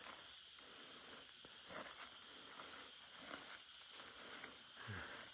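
Night insects chirping in fast even pulses, about seven a second, which stop about two seconds in and leave a steady high insect hiss. Soft rustles of footsteps through tall grass come now and then.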